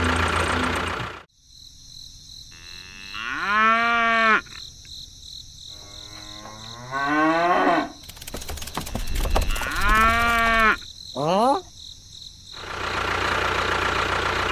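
A cow mooing: four calls in the middle, the last one short, with a burst of rapid clicks between the second and third. The small motor of a toy tractor runs steadily at the start and again near the end.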